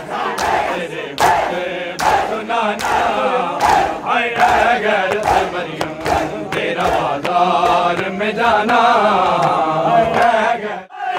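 A large crowd of men chanting a noha in unison while beating their chests in matam, the slaps of hands on bare chests falling about once every three-quarters of a second. The slaps thin out in the latter part, and the sound cuts out briefly near the end.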